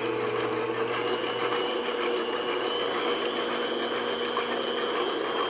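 Electric stand mixer motor running steadily at medium-low speed, its wire whisk beating egg whites in a stainless steel bowl until foamy, with a steady high whine.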